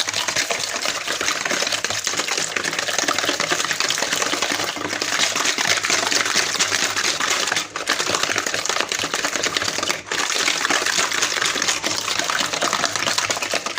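Electric hand mixer beating a batter of eggs, oil and sugar in a bowl, running steadily with fast clattering of the beaters. It cuts out briefly twice, about eight and ten seconds in.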